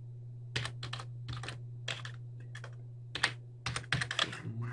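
Computer keyboard keys being typed: irregular clicks in short runs, with a quick cluster of keystrokes near the end, over a steady low hum.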